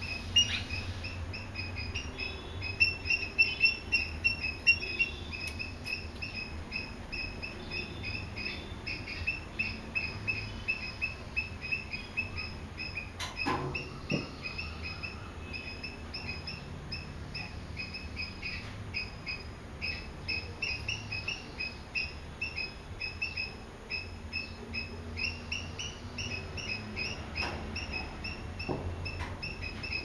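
Swallows chirping: short, high chirps repeat several times a second without a break. One sharp knock comes about halfway through.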